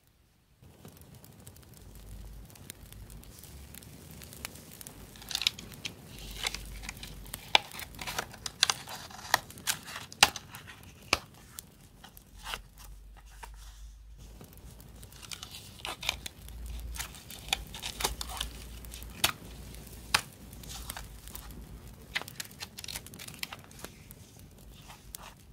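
Paper handling: sticker sheets and memo-pad paper rustling and crinkling, with many sharp crackles and ticks, in two busy stretches with a brief lull about halfway through.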